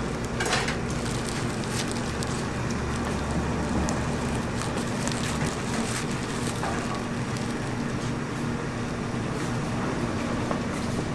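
Steady background noise of a busy street-food stall, with a constant low hum and a few faint clicks.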